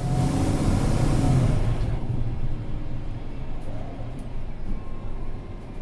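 The compressed-natural-gas Mercedes-Benz M 936 G engine of a Mercedes-Benz Citaro C2 G NGT articulated bus running. It is loudest for the first two seconds, with a hiss that fades out about two seconds in, then settles to a lower, steady rumble.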